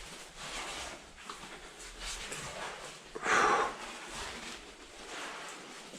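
A caver breathing hard while scrambling over rock in a narrow passage, with a louder burst of breath or scuffing about three seconds in.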